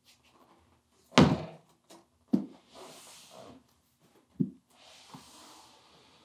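A large cardboard computer box is set down on a wooden desk with a heavy thump about a second in. Two lighter knocks follow, along with the scrape of cardboard sliding across the desktop.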